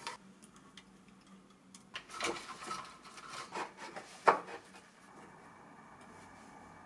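Knocks and rubbing of hands working on a small DC motor speed controller, with a sharp click about four seconds in as its knob is turned. Then a faint, steady whine from the lathe's DC motor running slowly under the controller.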